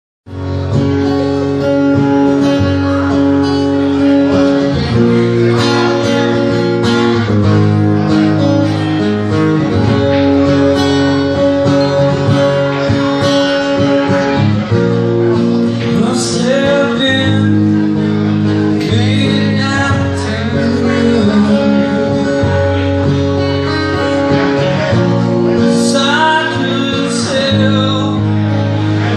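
Live band of two acoustic guitars strumming chords with a man singing at a microphone. The guitars carry the first part, and the singing comes in more strongly about halfway through.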